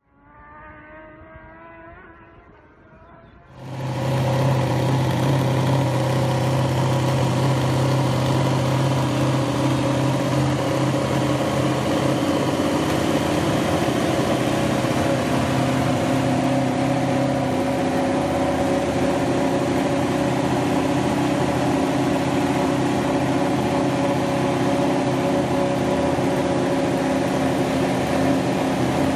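Aprilia RS-GP MotoGP bike's V4 engine running at a steady idle while the bike stands on its paddock stands. The engine comes in suddenly about four seconds in, after a quieter sound with a few rising tones, and then holds an even note with small shifts in pitch.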